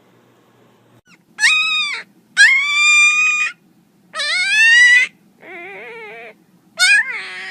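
An animal's drawn-out, pitched cries, five in a row from about a second in, some wavering up and down; the fourth is quieter and lower than the rest.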